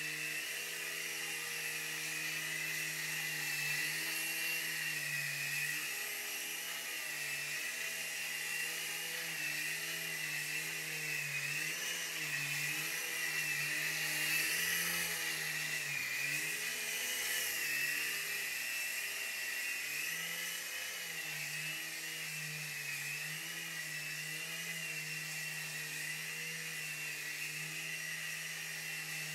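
Night Hunter micro RC helicopter's small electric motors whining and its two rotors buzzing in flight, the pitch rising and falling again and again. Louder about halfway through as it passes close.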